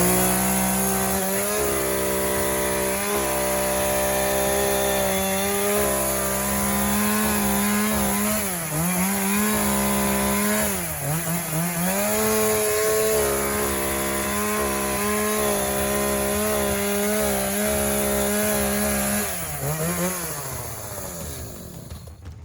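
Chainsaw running at full throttle, cutting into a thick giant pumpkin. Its pitch sags twice in the middle as the chain bites, then drops and dies away near the end as the throttle is let off.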